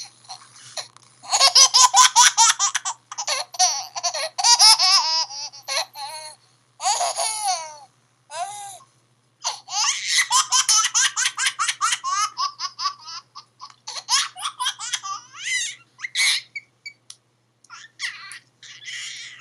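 Laughter ringtone: high-pitched, baby-like laughing in quick pulsing bursts, played back with almost no bass and running in several stretches with short breaks between them.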